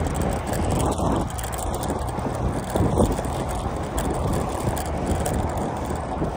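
Wind rushing over the microphone and tyre rumble of a road bike rolling along a paved path, a steady low noise with a few louder gusts.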